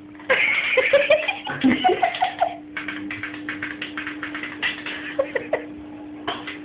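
People laughing, then a run of quick short sounds, over a steady low hum.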